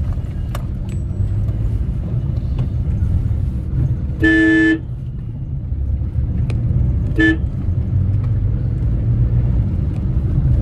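Low, steady road and engine rumble of a Maruti WagonR with a three-cylinder petrol engine on a test drive. A car horn honks once for about half a second about four seconds in, then gives a short toot about seven seconds in.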